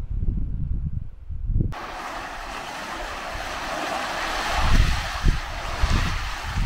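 Low wind rumble on the microphone, then from about two seconds in, sea waves washing into a rocky cove and swirling around the boulders, with gusts of wind buffeting the microphone.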